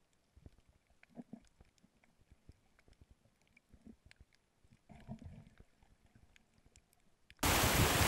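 Very faint underwater recording with a few scattered small clicks and soft knocks, then, about seven seconds in, a sudden loud, steady rush of wind noise on the microphone.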